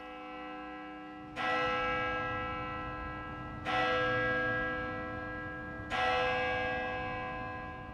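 A church bell tolling: three strikes a little over two seconds apart, each ringing on and fading slowly into the next.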